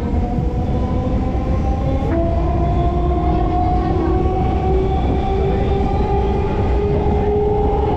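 Suburban EMU electric train running at speed, heard from inside a coach: a steady low rumble under a whine of several steady tones. About two seconds in the tones jump to a new pitch, then slowly rise.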